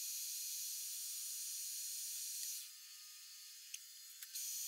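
Steady hiss of an engine lathe running with a bronze workpiece spinning in the chuck. About two-thirds of the way through it drops quieter, with two faint clicks, and it comes back up just before the end.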